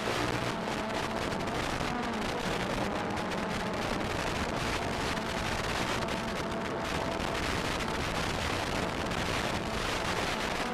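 FPV quadcopter's motors and propellers running in flight, heard through the onboard microphone as a steady rush of wind and hiss with faint whining pitches that drift up and down with the throttle.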